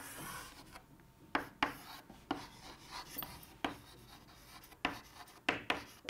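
Chalk drawing and writing on a chalkboard: quiet scratching strokes and taps, irregularly spaced, as lines and letters are put on the board.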